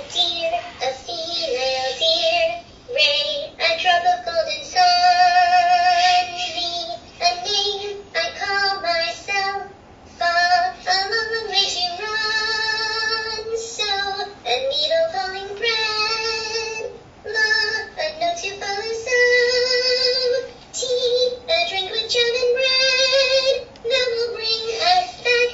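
Nao humanoid robot singing a song in a high voice: a run of held notes with a wavering vibrato, in phrases broken by short pauses.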